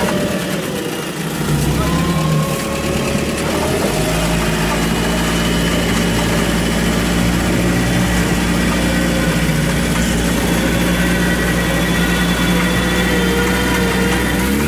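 Off-road vehicle engine running at raised, steady revs during the recovery of a vehicle tipped into a trench with a tow strap. The note steps up about a second and a half in and again around four seconds in, then holds.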